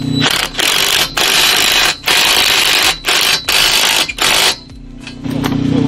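Cordless impact driver tightening a nut onto a bolt through a wooden 2x6 into a steel conduit greenhouse hoop. Its impact mechanism hammers in about seven short rattling bursts with brief pauses, then stops. Near the end the motor hums steadily as it spins freely.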